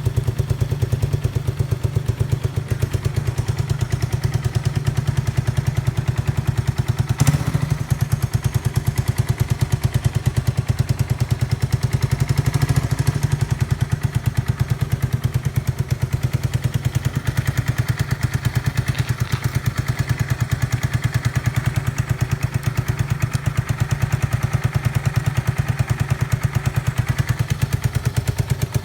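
Yamaha TW200's air-cooled single-cylinder four-stroke running at a steady idle through a 4-inch Supertrapp exhaust, with an even beat of exhaust pulses and no abnormal noise. A single sharp knock comes about seven seconds in.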